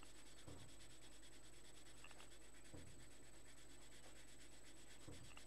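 Faint scratching of a colouring pencil on paper over a low steady hum, with a few soft knocks.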